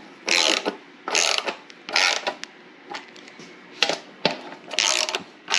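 Ratchet wrench clicking in short runs, about half a dozen times with brief pauses between, as it runs down the bolts on a chrome valve cover.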